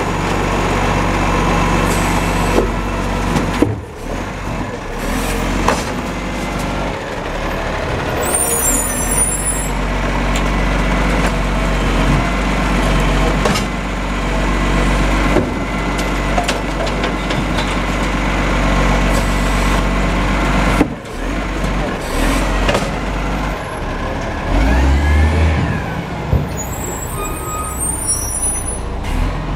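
Side-loading recycling truck's diesel engine running steadily while its automated arm lifts and empties a wheelie bin, then the truck pulling away with a low surge of engine about three-quarters of the way through. Short high squeals come twice, and there are air-brake sounds.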